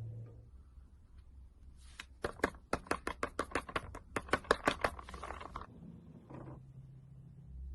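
Slime being worked by hand, giving a quick run of sharp sticky clicks and pops, about six a second, for roughly three seconds in the middle.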